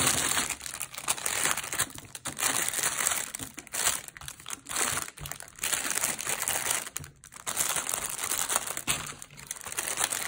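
Clear plastic bag crinkling in the hands as wooden stamps and washi tape rolls are pushed back into it. The crinkling comes in irregular spurts, with a short lull about seven seconds in.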